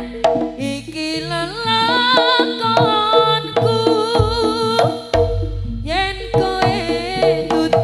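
Live jaranan ensemble music: kendang hand drums and gong-chime percussion under a wavering, sliding melody line. Deep low booms come in about four and five seconds in.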